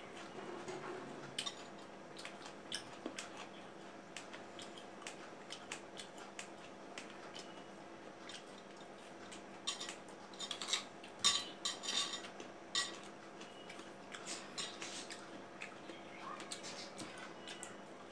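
Small clicks and clatters of fingers and cut guava pieces on ceramic dinner plates as two people pick up fruit and eat, scattered throughout and busiest a little past the middle.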